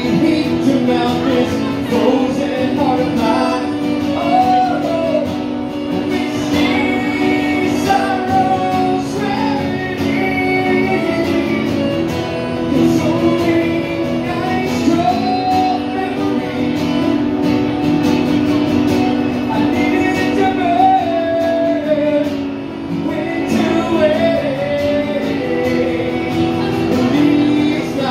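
Live country music: strummed acoustic guitar and fiddle with a man singing.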